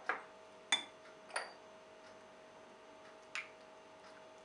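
Metal spoon clinking against a small glass bowl and a ceramic dish while scooping out paste: three quick clinks in the first second and a half, then one more about three and a half seconds in.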